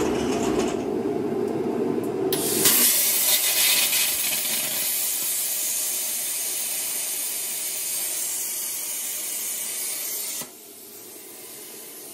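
Stepper motors of a homemade CNC plasma table drive the torch gantry to its first pierce point. About two and a half seconds in, the Primeweld CUT60 plasma torch fires with a loud hiss of arc and air, which holds steady for about eight seconds and cuts off suddenly. The torch pierces, then the machine stalls instead of moving on to cut, a fault the owner suspects is in his CNC wiring.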